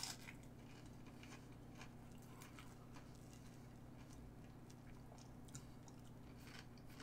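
Faint chewing of a breaded vegan chicken dipper: soft, scattered mouth clicks over a steady low hum.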